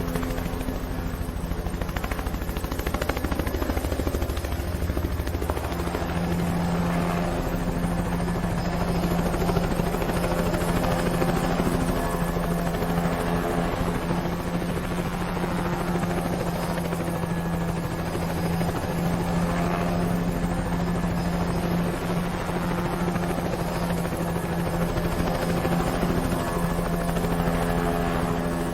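Helicopter sound effect: a steady, continuous helicopter drone with a low hum, laid over aerial footage.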